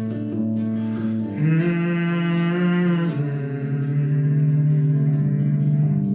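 Acoustic guitar playing an instrumental passage of a live song, with a long held note over it from about one to three seconds in.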